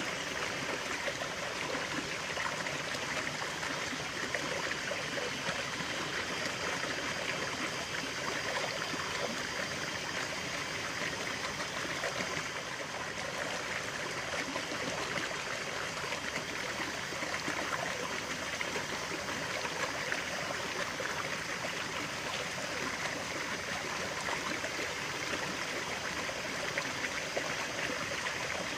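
A stream of running water flowing and trickling steadily, a bright splashing rush.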